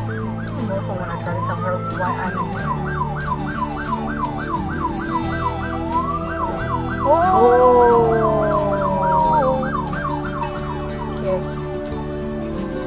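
Police car siren in a fast yelp, its pitch sweeping up about three times a second. About seven seconds in, a horn sounds over it for around two seconds, slightly falling in pitch.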